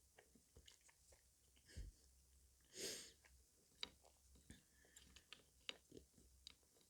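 Faint mouth sounds of someone eating sweets: scattered small wet clicks and chewing. One short, louder breathy hiss comes about three seconds in.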